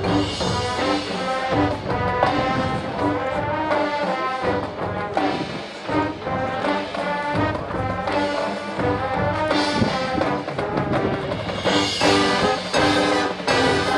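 Marching band playing its field show, with brass carrying the music. The band swells louder about twelve seconds in.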